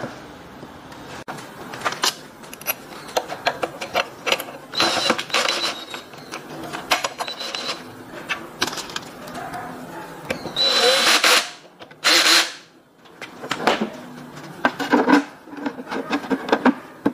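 Plastic covers of a wood thickness planer being handled and fitted back on, with scattered clicks and knocks, broken by two short whirring runs of a power screwdriver driving the cover screws, about five seconds in and again near the middle.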